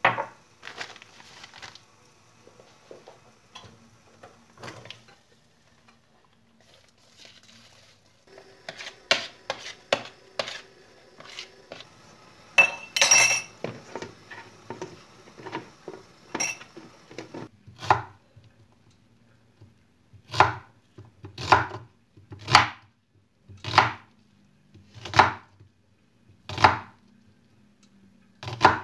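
Light clatter of a plastic bowl and lid being handled on a counter, with a steady hum under it for a while. Then a knife slicing an onion on a wooden cutting board, each cut knocking on the board, about one every second.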